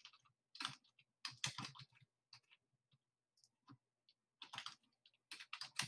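Faint typing on a computer keyboard in short bursts of quick keystrokes, with a few single clicks in the pause between.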